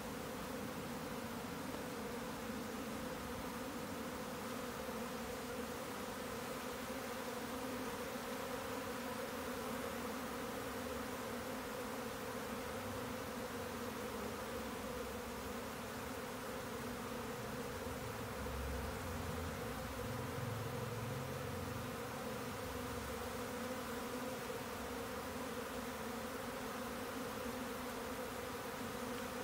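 Steady buzzing hum of a Japanese honeybee colony during swarming, with a mass of bees clustered on the hive front and many in flight around it.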